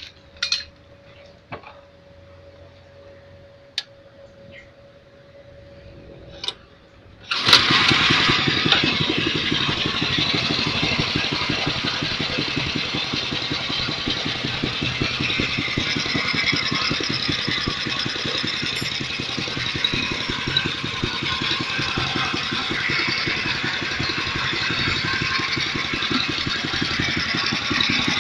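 Small single-cylinder engine starting suddenly about seven seconds in, then running steadily with a rapid, even firing beat. Before it starts, a few sharp metallic clicks and knocks.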